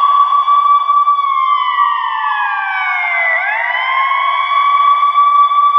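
Ambulance siren wailing. The pitch falls slowly for about two seconds, then sweeps quickly back up about three and a half seconds in and holds high.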